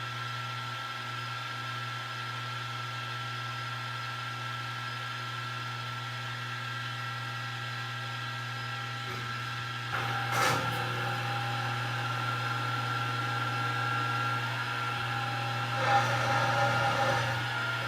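Milling machine spindle running steadily in high range at about 1200 RPM with a small drill bit, a steady motor hum with a fixed whine. About ten seconds in there is a sharp knock, and after it the sound is louder and rougher as the bit works in the steel plate, with another bump near the end.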